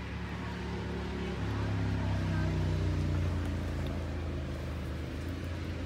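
A motor engine running with a low, steady hum, growing louder about a second and a half in and easing off again after about three and a half seconds.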